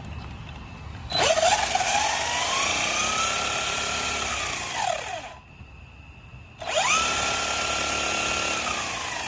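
Electric motor and drivetrain of a Laegendary Thunder RC truck whining as the throttle is applied. The whine rises to a steady high pitch, holds, then falls away, and this happens twice.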